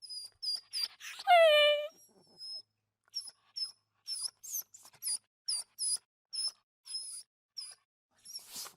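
A dog crying: a run of short, high-pitched whimpers, about two a second, with one louder, longer whine about a second in that slides down in pitch.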